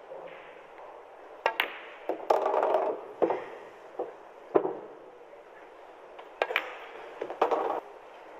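Pool balls clicking: the cue striking the cue ball and balls knocking together, several sharp clicks spread out, with a couple of short rattles between them.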